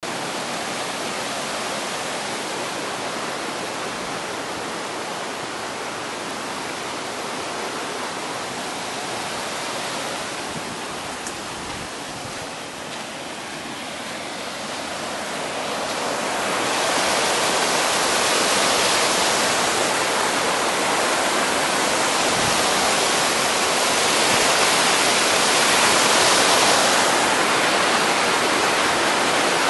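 Mountain valley stream flowing, a steady rushing of water that grows louder and brighter about halfway through.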